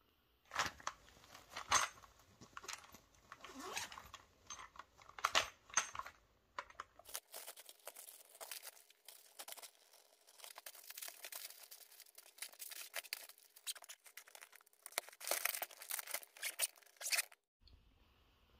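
Irregular rustling and crinkling with sharp little clicks as clothes and plastic-wrapped items are handled and packed into an open suitcase. It stops abruptly near the end.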